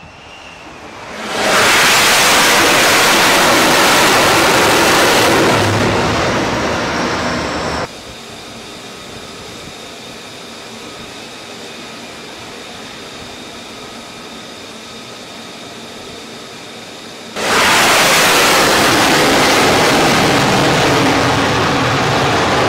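Single-engine F-35C fighter jet noise during carrier landings: a loud rushing jet blast that swells about a second and a half in and cuts off abruptly near eight seconds, a much quieter steady jet whine with faint tones, then a second loud rush that starts suddenly about seventeen seconds in.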